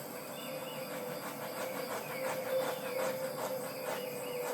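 Handheld butane torch burning with a steady hiss, lit just before and played over the wet acrylic pour.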